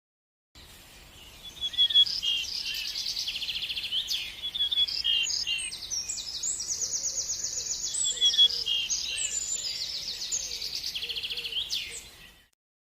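A songbird singing a long, varied song of high chirps and fast trills, starting about a second in and stopping shortly before the end.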